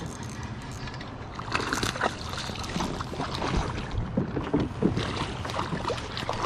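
Water sloshing around a kayak with scattered knocks and clicks while a hooked smallmouth bass is fought, louder from about one and a half seconds in; the bass splashes at the surface near the end.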